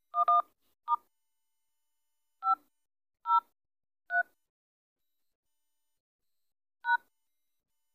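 Phone dialer keypad tones: short two-note DTMF beeps, one for each key pressed as a USSD code is typed. About seven come in an uneven run, two close together at the start and the last after a gap of more than two seconds.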